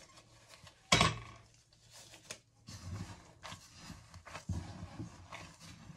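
Gloved hands squeezing and kneading crumbly flour-and-sesame-seed dough in a glass bowl, in repeated soft squishing, crunching rustles. About a second in comes one sharp knock, the loudest sound.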